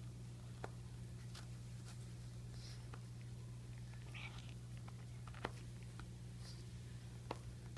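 Boston terrier chewing a tennis ball, his teeth giving a few sharp clicks and soft gnawing sounds, over a steady low hum.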